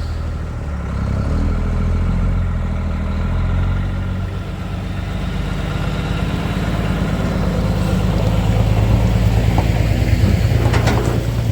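Ford Super Duty pickup's engine running while towing a trailer loaded with a backhoe, getting louder about two-thirds of the way through as it pulls harder under the load.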